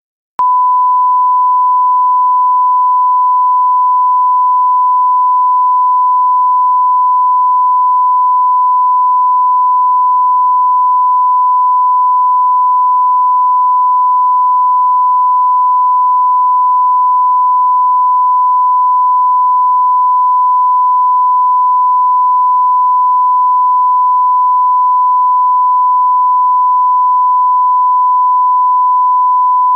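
Steady 1 kHz sine test tone, one pure unchanging pitch, switching on abruptly out of silence about half a second in and holding at a constant, loud level.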